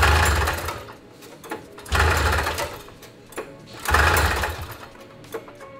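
Recoil starter rope on a 1970s Arctic Cat four-track snowcat's engine pulled three times, about two seconds apart. Each pull spins the engine over in a loud whirring rush lasting about a second, then it winds down without catching: the engine does not start.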